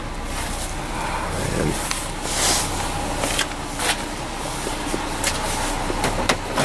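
Rummaging through junk in a dumpster: scattered clicks, knocks and rustling as objects are moved, over a steady low hum.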